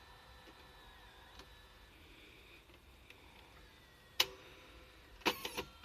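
Faint steady hum, then one sharp click about four seconds in and a quick run of several clicks about a second later. The clicks come from the controls and tape mechanism of a Victor HR-S10 portable video cassette recorder being worked during a tape run test.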